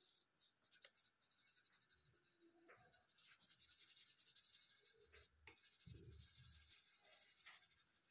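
Coloured pencil scratching faintly on paper in quick back-and-forth shading strokes, with a soft low bump a little after the middle.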